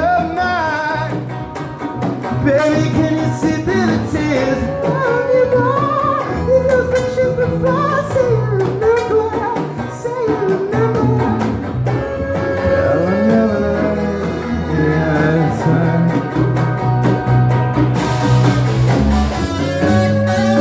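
Live band playing: electric guitar and hand drums over a steady bass line, with a bending lead melody on top.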